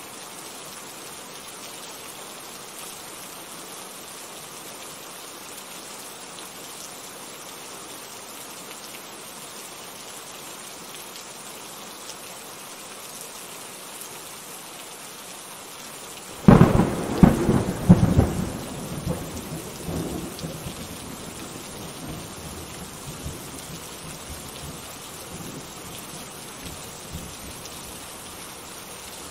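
Steady rain falling. A little past halfway, a sudden loud thunderclap breaks in and rolls on, fading over several seconds back into the rain.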